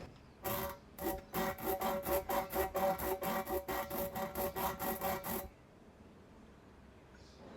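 Tire plug kit's spiral rasp tool worked rapidly in and out of a puncture in a tubeless tire, reaming the hole. It makes a run of rasping strokes about four a second, each with a ringing tone, and stops abruptly about five and a half seconds in.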